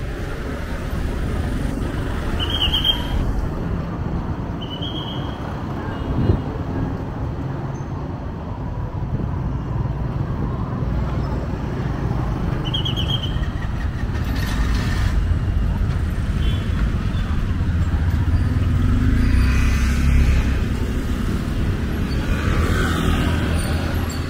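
City street traffic: motorbike, tuk-tuk and car engines running past. Three short, high beeps come about two, five and thirteen seconds in. The engine noise swells as a vehicle passes close, about three-quarters of the way through.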